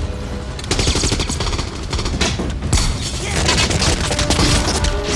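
Automatic gunfire in rapid, dense bursts over a steady low rumble.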